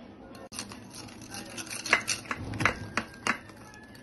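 Metal wire whisk clinking and scraping against the sides of a bowl while stirring cocoa powder into thick brownie batter, with irregular taps that grow louder and sharper in the second half.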